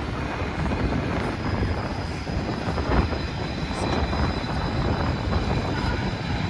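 Steady low rumble of a Norfolk Southern train, with a faint high, steady whine joining about halfway through.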